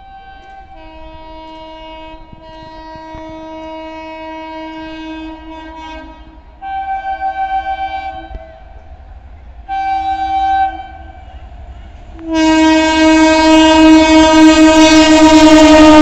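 Horn of an Indian Railways WAP-7 electric locomotive sounding a multi-tone chord as an express approaches fast. There is a long blast, two short blasts, then a loud continuous blast, each louder than the last, with the rush of the passing train coming in at the very end.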